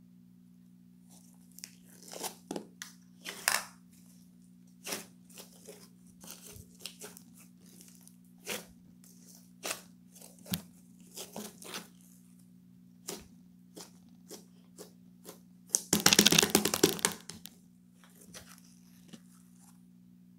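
Scattered short rustling and crinkling handling sounds, then a louder tearing sound lasting about a second and a half near the end, over a steady low hum.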